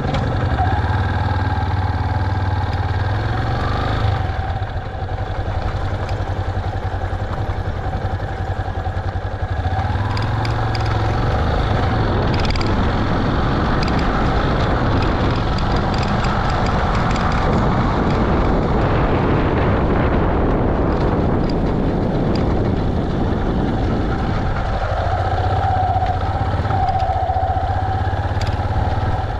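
Yamaha Serow 250's single-cylinder engine running steadily, rougher and noisier through the middle stretch and smoother again near the end.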